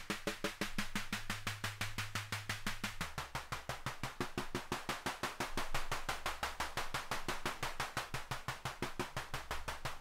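Beehive Eurorack module, a Mutable Instruments Plaits clone, playing its analog snare drum model: rapid repeated snare hits, about eight a second, while the timbre knob is turned, shifting the balance between the drum's resonant modes. The low body tone under the hits drops in pitch about three seconds in.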